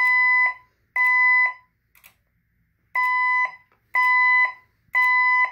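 Fire alarm speaker strobes sounding the temporal-three evacuation tone: loud steady beeps about half a second long in groups of three, with a longer pause between groups. This is the second-stage evacuate signal of the voice evacuation system.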